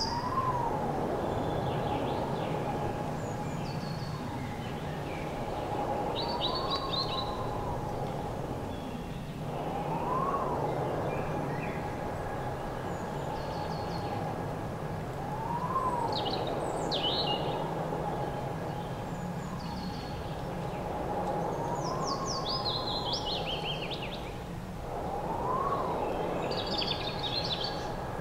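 Ambient sound bed: a steady hum with a soft swell about every five or six seconds, each swell carrying a tone that rises and falls back, and birds chirping now and then over it.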